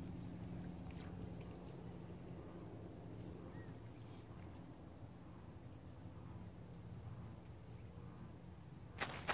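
Faint outdoor ambience: a low steady rumble with a faint steady hum, and a few sharp clicks about nine seconds in.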